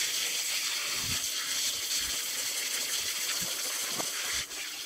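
Garden-hose spray nozzle jetting water onto a plastic tarp: a steady loud hiss of spray, dipping briefly near the end.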